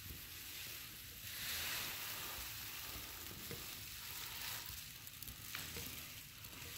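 Footsteps shuffling over a floor covered in paper: a soft crinkling hiss that swells and fades, with a few faint ticks.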